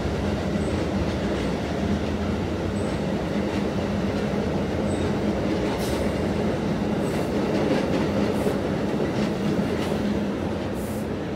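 A train rolling past: steady wheel-on-rail noise with a low hum underneath, and a few sharp clicks in the second half.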